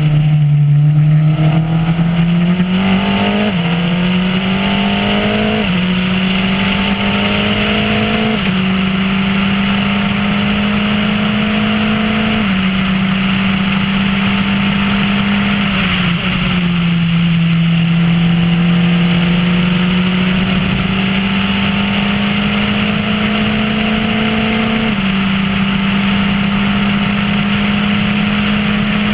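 Formula Renault race car engine accelerating hard through the gears. The pitch climbs and drops sharply at each of about six upshifts, and the pulls grow longer between the later shifts.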